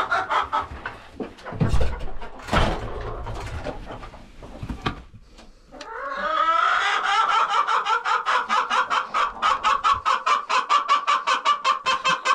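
Chickens clucking, with two heavy thumps near the start; from about halfway a chicken keeps up a steady, rapid run of clucks, about five a second.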